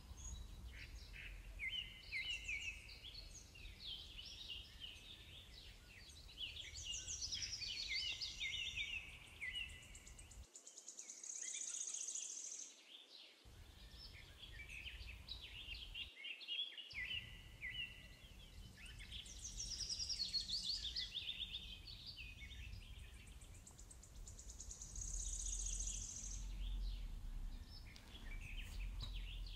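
Birds singing and chirping, with rapid trills and high held notes coming and going throughout, over a faint low rumble that cuts out twice.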